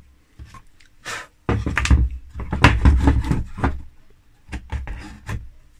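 A carved linden-wood piece being handled on the bench: a few light clicks, then a run of louder knocks and scraping of wood on wood in the middle, and a few sharp taps near the end.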